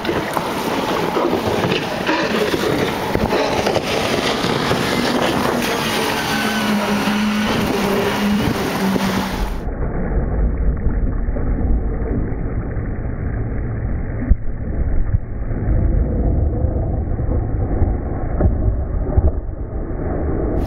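Wind buffeting the microphone over choppy water, with the drone of a motorboat's engine. About halfway through, the buffeting turns heavier and deeper.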